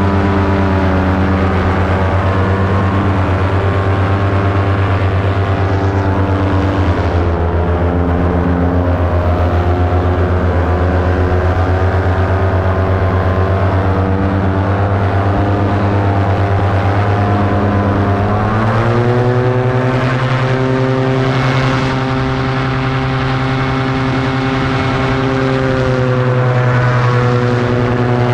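Paramotor engine and propeller running steadily in flight. About two-thirds of the way through, the pitch rises and then holds higher as the throttle is opened up.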